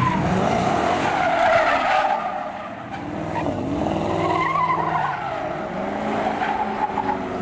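A car drifting: its tyres squeal with a wavering pitch over the revving engine, dipping briefly in loudness about two and a half seconds in.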